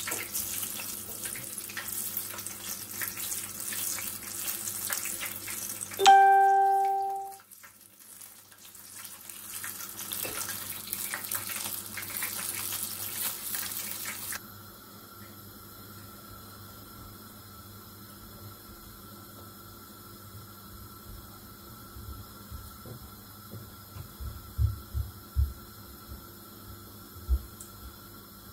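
Battered apple rings deep-frying in a pan of hot oil: a steady crackling sizzle. About six seconds in, a loud pitched ding rings and dies away over about a second; about halfway through the sizzle gives way to a quiet steady hum, with a few soft knocks near the end.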